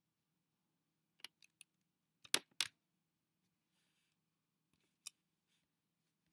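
A handful of small, sharp clicks, a few in quick succession between one and three seconds in and one more at about five seconds, over a very faint low hum.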